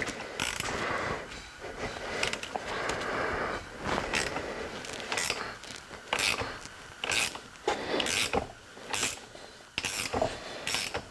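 Metal-on-metal scraping and clinking from hand work on engine parts, followed by sharp clicks coming about once a second.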